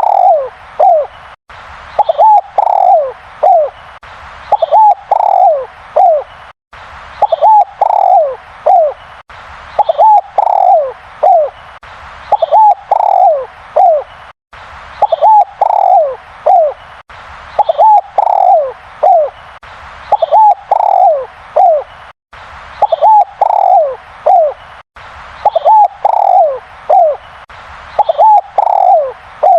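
Derkuku dove cooing loudly, repeating its phrase of several short, falling coo notes every two seconds or so.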